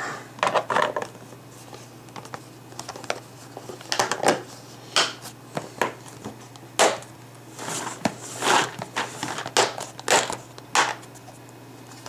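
Clear plastic storage boxes full of dice being lifted, shifted and set down on a wooden table: irregular plastic knocks and short rattles of dice inside the boxes.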